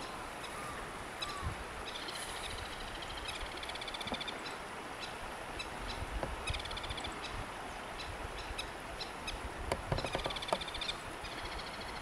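Strong wind buffeting the microphone as a steady low rumble. Several short bouts of rapid, high rattling bird trills come through it.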